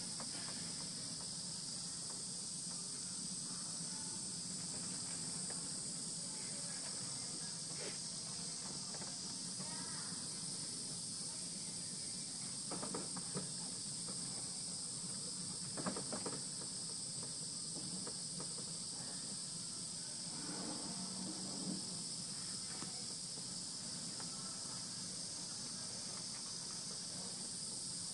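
Steady high-pitched insect chirring that does not change, over a faint low hum, with a few soft knocks near the middle.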